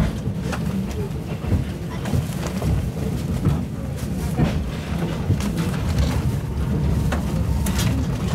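Running noise of a moving train: a steady low rumble with scattered clicks and knocks.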